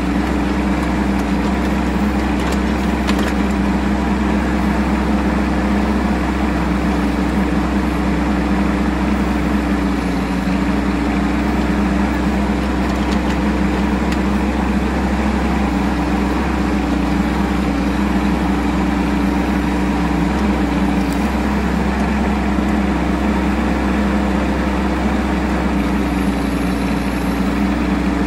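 Bobcat E10 mini excavator's diesel engine running steadily at working speed, its pitch sagging slightly a few times.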